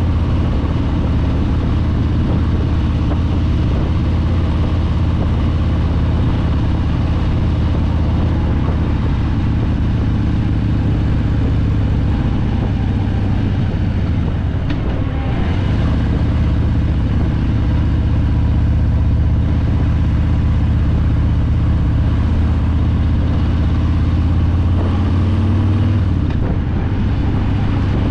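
2021 Harley-Davidson Breakout's Milwaukee-Eight 114 V-twin engine running steadily under way, its note dipping briefly about halfway through and again near the end.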